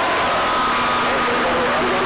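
CB radio receiver on channel 6 hissing with heavy static, with steady whistling heterodyne tones from several carriers keyed up at once. One whistle stops and another starts within the first half second, and a lower hum-like tone joins shortly after.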